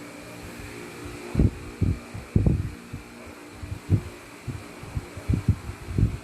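Irregular soft thumps and knocks of hands handling a Samsung Galaxy S6 Edge while unclipping its flex cable connectors, over a steady faint hum.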